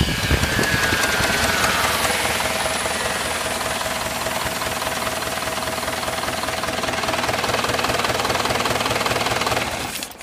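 Volkswagen 1.9 TDI (AFN) four-cylinder turbodiesel engine running at a steady idle with diesel knock on its first start; the sound drops away just before the end.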